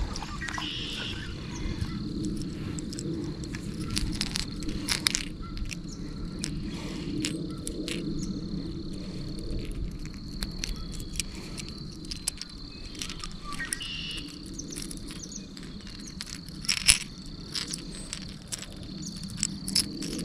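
Insects trilling steadily at one high pitch, with a few scattered sharp clicks and knocks, the loudest about seventeen seconds in.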